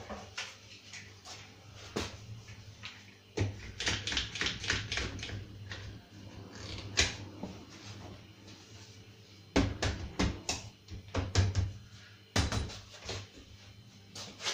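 Rapid clicks and wooden knocks from a plywood drilling jig being set against a kitchen cabinet door and a quick-release bar clamp being squeezed tight onto it, in two bursts of handling, a few seconds in and again past the middle.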